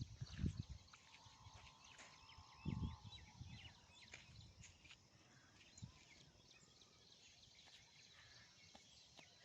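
Faint birdsong, many short chirps, with a few low thuds in the first second and again about three seconds in.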